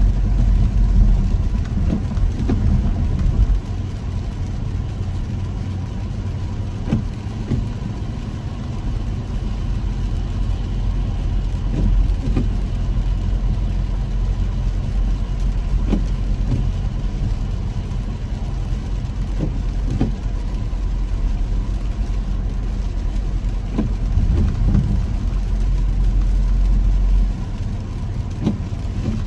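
Steady low rumble of a car driving on a wet road, heard from inside the cabin, with scattered light taps of raindrops on the windshield. The rumble eases a little near the end.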